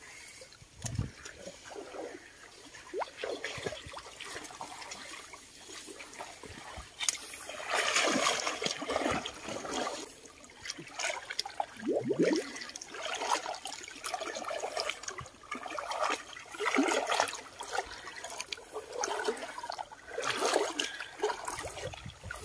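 Water sloshing and splashing in irregular bursts as a person wades waist-deep through a muddy creek and gropes by hand among the bank plants.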